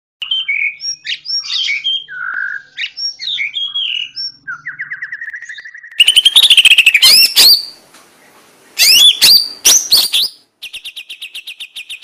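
Cucak ijo (greater green leafbird) singing a varied run of chirps and whistles. About six seconds in, a louder passage of rising sweeping notes starts suddenly, and it ends in a fast string of repeated notes.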